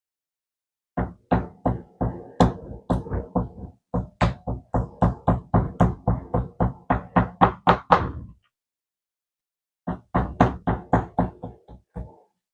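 A hand pounding raw chicken breast cutlets flat on a cutting board: quick thumps, about four a second, in two runs with a short pause between them.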